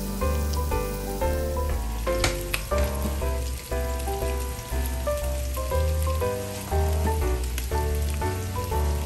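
Salmon steaks sizzling and spattering in oil in a nonstick frying pan, with a few sharp pops about two seconds in, under background music with a melody and a bass line.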